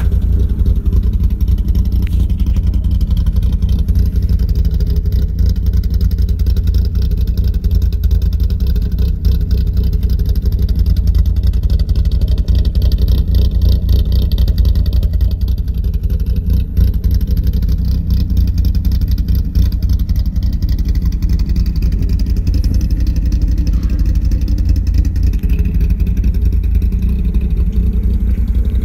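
VW Mk3 Jetta 2.0 8v four-cylinder engine with a fully ported head and a very large camshaft, running steadily at idle through TT 4-2-1 headers and a Magnaflow cat-back exhaust. The exhaust note is a deep, rapid pulsing.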